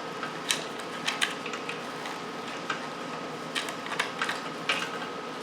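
Irregular light clicks and ticks of wiring-harness connectors and wires being handled and pulled loose on a motorcycle frame.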